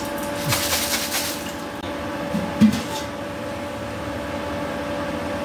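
Cooking sounds at a kitchen stove: a brief rattle about half a second in, then a sharp clink of a pot or lid about two and a half seconds in, over a steady hum.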